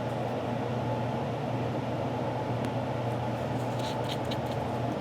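Steady low mechanical hum, like a fan or air-handling unit running, with a few faint light clicks about four seconds in.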